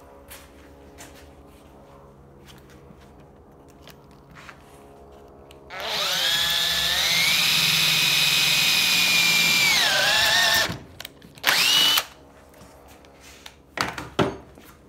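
Electric drill boring a smaller through-hole in a wooden workbench top: the motor spins up with a rising whine, holds steady for about four seconds, dips in pitch and stops, then runs again briefly. A few sharp knocks follow near the end.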